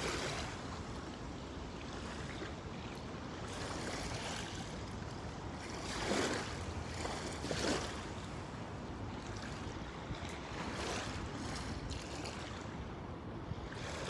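Water lapping in the shallows and wind on the microphone, a steady rushing noise, with two brief louder swishes about six and seven and a half seconds in.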